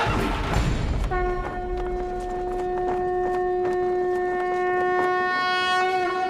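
A horn sounded in one long steady note of about five seconds, wavering slightly as it ends. In the first second, crowd shouting over music dies away before the note starts.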